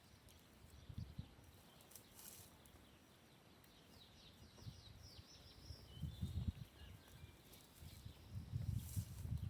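Faint outdoor ambience: small birds chirping in short downward-sweeping notes in the middle, with low thumps and rumbles around a second in and again near the end.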